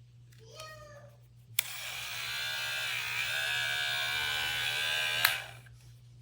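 Cordless electric hair clipper switched on with a click and running with a steady motor buzz for about three and a half seconds, then switched off with a click and winding down. Before it, a brief rising whine.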